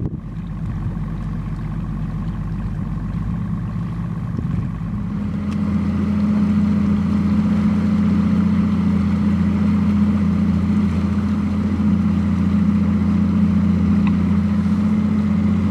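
Bass boat's outboard motor running, picking up speed about five seconds in and then holding a steady, louder hum.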